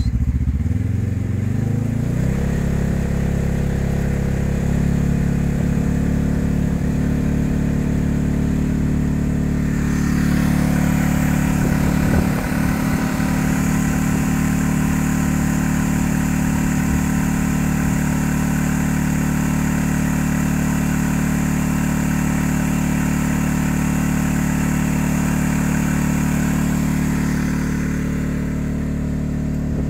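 Fire pump engine speeding up over the first couple of seconds, then running steadily at one constant speed while pumping water into the hose line. A hiss joins it from about ten seconds in and fades near the end.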